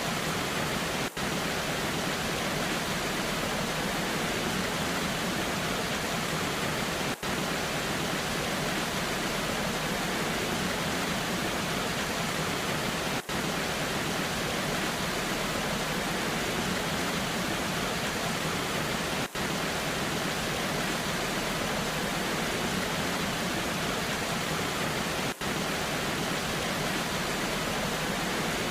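Natural waterfall in the rain: a steady, even rush of falling water, broken by a very brief cut-out about every six seconds.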